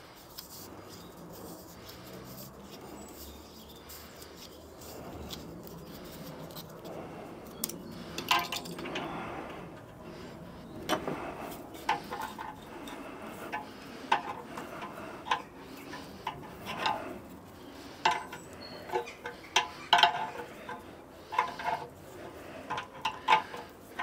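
A steel spanner clinking on a brass fitting as a threaded blank plug is screwed into a steam boiler: short, sharp metallic clinks at irregular spacing, about one a second, starting some eight seconds in. Before that there are only faint handling sounds.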